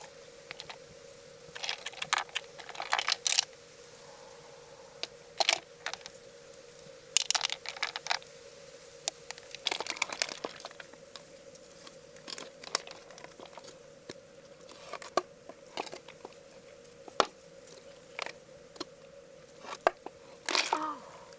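Freshwater mussel shells being handled, cut and pried open: irregular clusters of sharp clicks, crunches and scrapes, over a steady hum.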